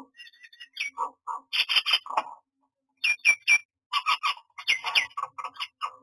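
Common myna calling: a fast run of harsh squawks, clicks and whistled notes, broken by a short pause about halfway through, then three quick falling whistles and more chatter.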